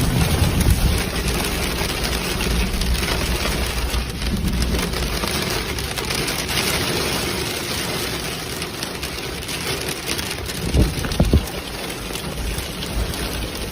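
Steady rain falling, an even hiss throughout, with a low rumble strongest in the first few seconds and a few short knocks about eleven seconds in.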